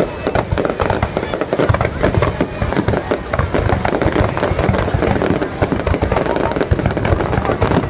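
Fireworks going off in a rapid, continuous barrage of bangs and crackles, many per second with no let-up.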